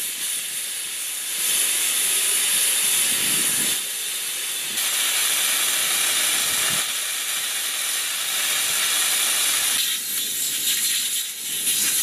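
Steady high hiss of air escaping at an F-35 main-wheel tire valve as the tire is let down. The level steps up and down a few times.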